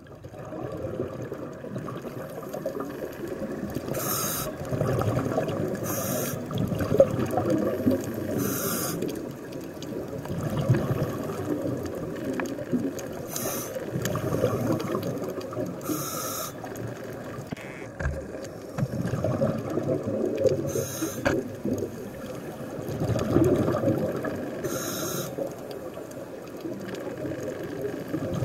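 Scuba diver breathing through a regulator underwater: a short hiss comes every two to four seconds, with a bubbling rumble swelling and fading in between.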